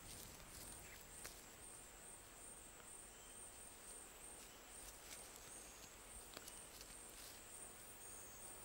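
Near silence: faint hiss with a thin, steady high whine and a few faint ticks.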